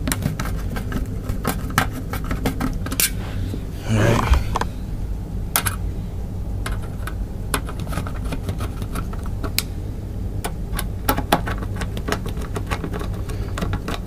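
A screwdriver driving screws into a hard drive's metal mounting bracket, making many small irregular metal clicks and scrapes. There is a brief rustle about four seconds in, and a low steady hum underneath.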